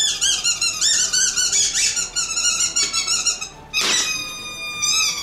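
Squeaky rubber chicken toy squeezed again and again, giving a quick run of short, high squeaks, then a longer drawn-out squawk about four seconds in.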